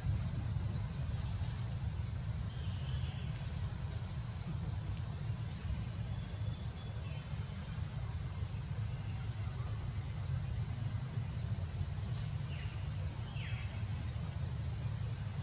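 Outdoor tree-canopy ambience: a steady low rumble under a continuous high-pitched insect drone, with a few faint short falling chirps.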